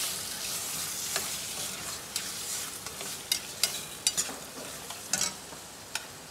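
Chicken pieces with dried red chillies frying in oil in a stainless steel pan, sizzling with a steady hiss as they are stirred. Cooking utensils scrape and clack sharply against the metal pans several times, mostly in the second half.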